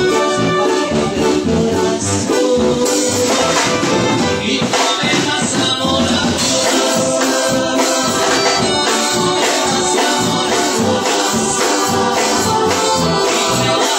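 Loud Latin dance music with brass and shaken percussion over a steady bass beat, heard in a hall.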